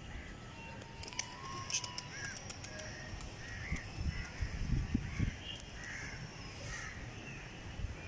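Birds calling in short, arched calls, repeated about nine times at irregular intervals, among a rooftop flock of pigeons. A few low thumps come about four to five seconds in and are the loudest sounds.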